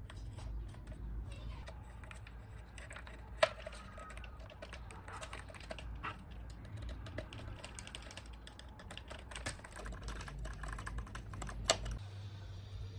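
Small handling clicks and taps as a screwdriver drives tiny screws into a plywood motor mount and a small brushless motor is fitted against it, with two sharper clicks about three and a half seconds in and near the end.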